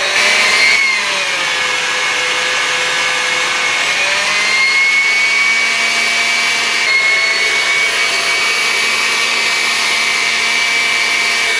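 KitchenAid tilt-head stand mixer running, its beater whipping heavy cream in the steel bowl: a steady motor whine whose pitch steps up a little about four seconds in and again near seven.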